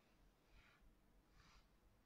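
Near silence: room tone with a low hum, and two faint, brief soft swishes about half a second and a second and a half in.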